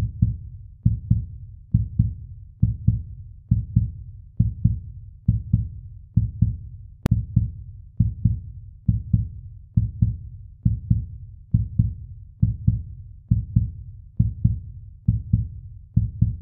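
Background music track: a deep, heartbeat-like double thump repeating steadily a little more than once a second.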